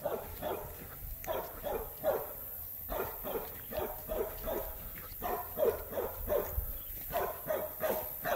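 Dogs barking over and over, about two or three barks a second in short bunches with brief pauses.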